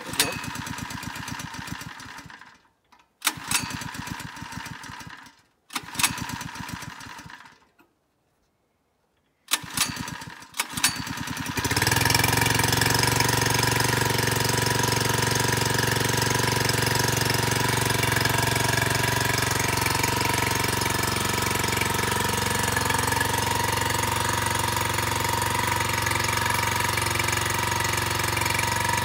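Small four-stroke gas engine of a Predator 1-inch water pump being started at half choke: several recoil-pull tries that crank and fail, then it catches about twelve seconds in and runs steadily, driving the pump.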